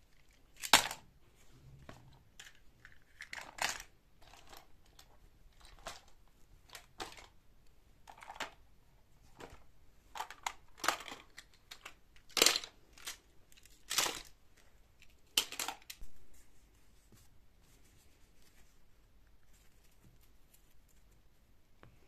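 Packaging being handled: a series of short, irregular crinkles and tearing rustles, the sharpest about a second in and two more a little past the middle, then it dies away.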